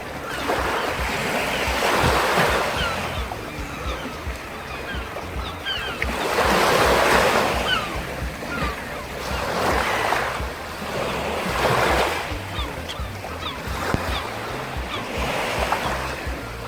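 Ocean surf: waves washing in and drawing back about five times, each surge swelling and fading over a second or two, with many short high chirps over it and background music underneath.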